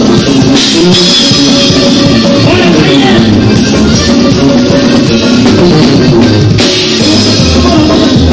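Loud live band music with a drum kit played close up, cymbal crashes standing out about half a second in and again near the seven-second mark.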